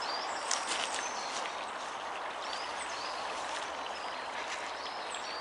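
Steady rushing of a small stream, with a few short bird chirps over it and a brief rustle of a t-shirt being pulled off over the head about half a second in.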